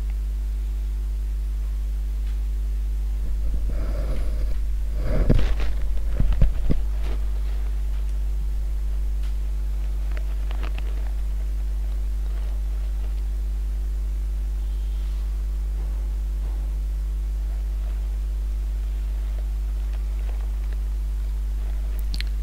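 Steady low electrical hum in the recording, with a row of fainter higher tones above it. A cluster of knocks and rustling comes about four to seven seconds in.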